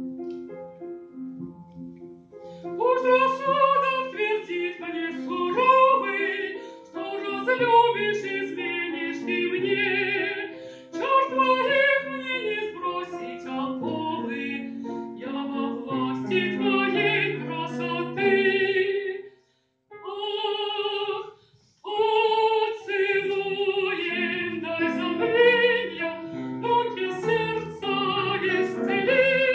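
A woman singing a Russian romance in a classically trained voice with strong vibrato, accompanied on grand piano. The piano plays alone for the first couple of seconds before the voice comes in. The sound cuts out briefly twice about two-thirds of the way through.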